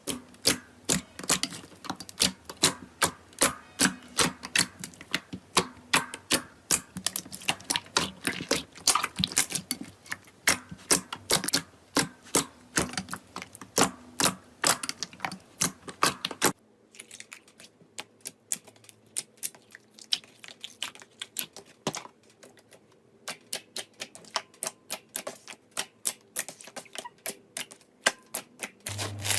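Slime being pressed and poked, making sharp crackling clicks and pops at about four a second. About halfway through it cuts to a quieter clip with the same kind of clicking.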